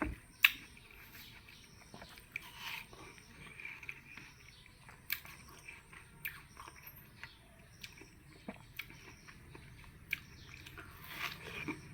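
A person biting and chewing juicy watermelon: faint wet chewing with scattered sharp clicks and smacks, the loudest about half a second in.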